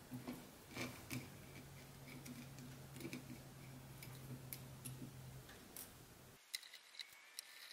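Faint, scattered clicks and ticks of a hand screwdriver driving small machine screws through a Raspberry Pi's mounting holes into standoffs. A faint steady low hum sits under the clicks for a few seconds, and near the end the background drops to near silence.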